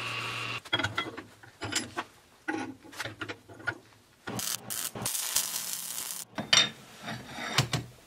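Metal lathe running, stopping about half a second in. Then a string of short metal scrapes and knocks as steel pipe is filed and handled, with a longer hiss for about two seconds midway.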